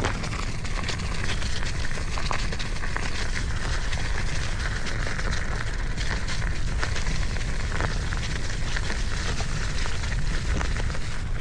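Wind rumbling on the microphone over a steady, noisy crackle of many small clicks.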